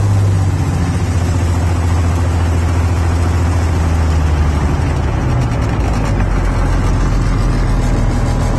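Jabiru 3300 flat-six aircraft engine and propeller in a static ground run, heard from the cockpit: the note sinks slowly over the first four to five seconds as the power comes back from a high-power run, then holds steady at lower revs.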